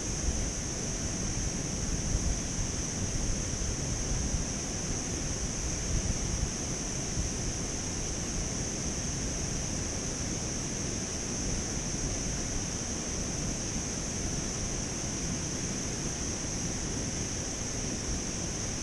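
Wind buffeting an outdoor camera microphone, a gusty low rumble over a steady rushing noise, with a constant high-pitched hiss.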